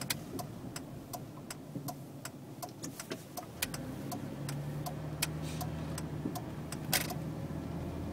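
A car's turn-signal indicator ticking steadily, about two to three clicks a second, heard inside the cabin over the low hum of the engine. The ticking stops about three and a half seconds in, and the engine hum grows stronger as the car drives on. A single sharp click comes near the end.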